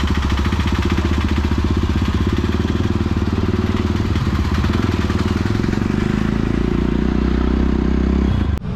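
Jawa Perak motorcycle's single-cylinder engine running steadily with an even exhaust pulse, cutting off suddenly near the end.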